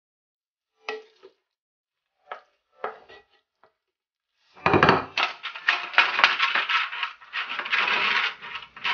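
A spatula scraping across a stainless steel frying pan a few times while ground-meat filling is stirred, then about halfway in a longer, much louder stretch of dense scraping and clatter.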